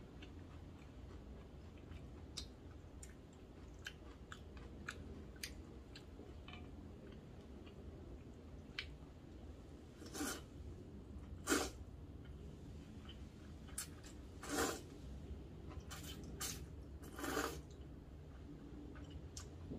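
A person eating buckwheat noodles: soft chewing and small mouth clicks at first, then four loud slurps of noodles in the second half.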